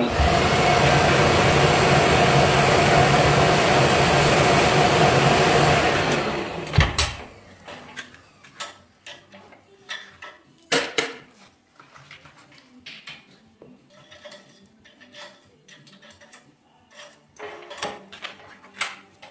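Wood lathe spinning a copper tube while its surface is scratched, a loud steady noise with a hum that stops after about six and a half seconds; the scuffing roughens the tube so the glue grips better when it goes into a pen blank. After that come scattered light clicks and knocks of the tube and lathe parts being handled, the loudest about ten seconds in.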